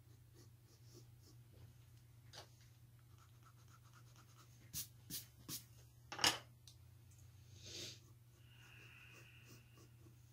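Faint tapping and light scratching at a computer desk over a steady low hum. Three sharp clicks come about halfway through, with a louder one just after.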